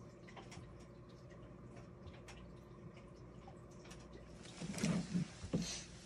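KitchenAid KHWS01PMT2 front-load washer winding down at the end of its final spin, a quiet steady low hum with faint scattered ticks and drips. About five seconds in, a brief cluster of louder thumps and rustling.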